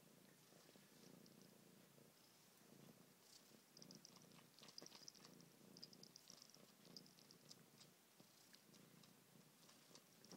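A cat purring softly in a steady, pulsing low rumble, with a run of faint clicks in the middle.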